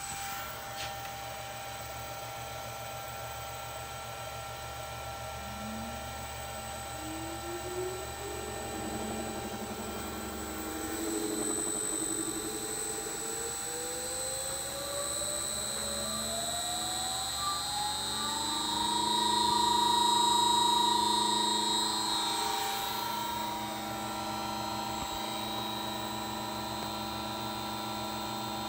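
An electric motor driven by an Allen-Bradley PowerFlex 70 variable-frequency drive accelerates under test: its whine rises steadily in pitch for about thirteen seconds, then holds steady at speed. A steady high-pitched tone from the drive runs underneath.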